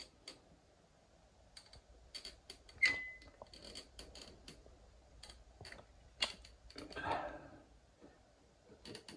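Caulking gun clicking irregularly as the trigger is worked and the plunger rod pushes silicone sealant out of the tube. The loudest click, about three seconds in, rings briefly.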